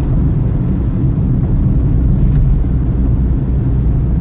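Car cabin noise while driving: a steady low rumble of engine and tyres on the road.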